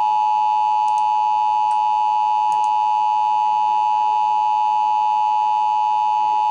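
Emergency Alert System attention tone: a loud, steady electronic tone centred near 1 kHz, held without a break, announcing that an alert message is about to follow.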